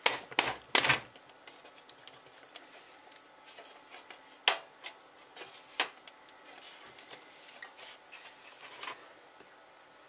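A drive being pushed and shifted in a tight-fitting computer case drive bay: rubbing and scraping against the metal case. There are several sharp clicks and knocks, a quick cluster in the first second and a few single ones later.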